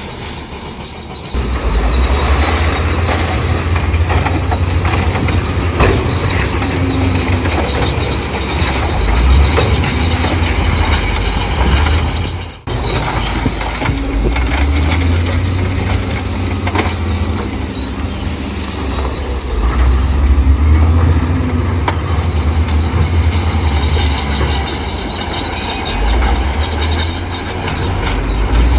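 Crawler bulldozer at work: its diesel engine runs hard under load while the steel tracks squeal and clank. The sound breaks off briefly about a second in and again about halfway through.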